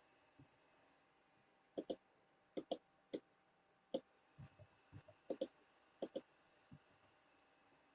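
Computer mouse clicking: a string of sharp clicks, several in quick pairs like double-clicks, with a few softer low taps between them.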